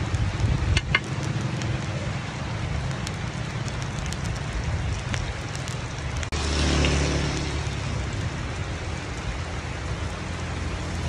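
Coconut cake batter sizzling steadily in the hot cups of a cast-iron mould pan, with a few light clicks about a second in. A low engine hum runs underneath and grows louder about six seconds in.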